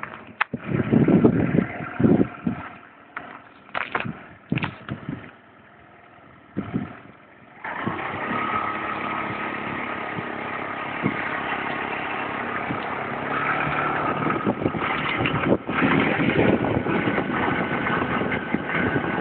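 Scooter engine running steadily on the move, mixed with wind buffeting the microphone. For the first third there are only irregular gusts of wind noise; then the engine drone comes in abruptly and holds steady, growing a little louder about two-thirds of the way through.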